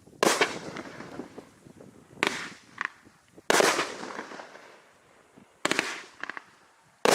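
The Black Hole (RA530158) by Raccoon Fireworks going off: about five loud bursts roughly a second and a half to two seconds apart, each fading out in a crackle, with a few smaller pops in between.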